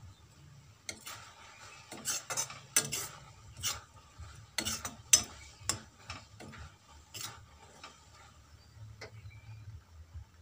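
A metal spoon stirring in an aluminium kadai of bubbling liquid, clinking and scraping against the pan. There are about a dozen sharp knocks between about one and seven seconds in, then it goes quieter.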